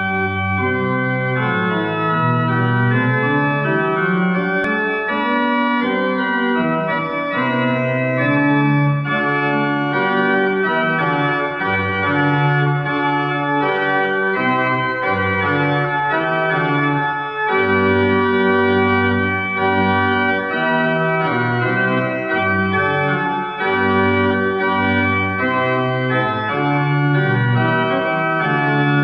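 Pipe organ playing a piece in held chords, starting abruptly at the beginning, with the notes and harmony changing every second or so.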